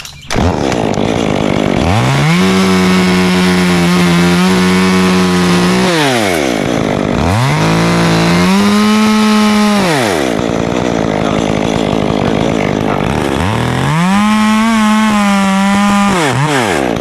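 Two-stroke chainsaw revved up to full speed three times, held for a few seconds each time and dropping back to idle in between, as it cuts a notch into a birch limb.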